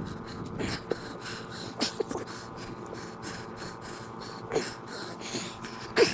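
Digging tool scraping and knocking in a post hole against a buried stone or chunk of cinder block, with irregular scrapes and knocks and the loudest knock near the end.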